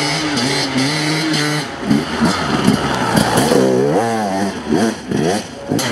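Enduro motorcycle engines. One holds a steady note for the first couple of seconds, then engines rev up and down several times.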